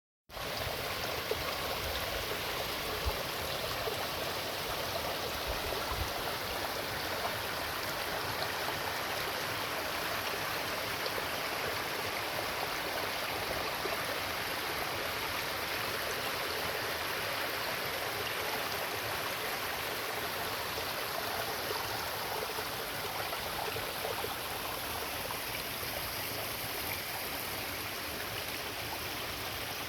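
Steady rushing of running water, like a stream, even and unbroken throughout, with a few soft low thumps in the first few seconds.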